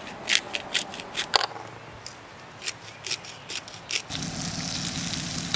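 Hand-twisted salt and pepper grinders cracking in a quick run of short rasping clicks. About four seconds in a steady sizzle starts: fish frying in the pan on the propane camp stove.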